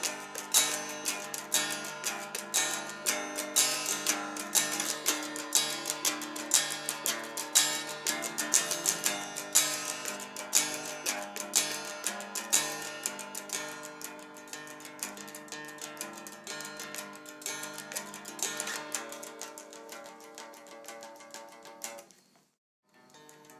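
Guitar music: a quick riff of rapidly plucked notes that fades gradually over the second half and drops out briefly near the end.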